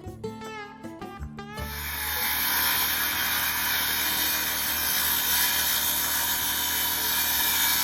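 Acoustic guitar music for about the first second and a half, then a power tool starts and runs loud and steady.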